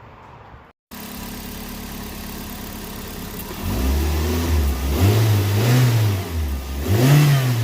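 Car engine idling steadily, then revved in three short blips about two seconds apart in the second half, the pitch rising and falling with each one.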